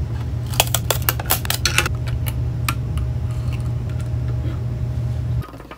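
Sharp plastic clicks and snaps from handling 3D-printed turbine blades, most of them in the first two seconds while the blades sit on a flexible printer build plate, then scattered clicks as they are fitted to a printed hub. A steady low hum runs underneath and cuts off near the end.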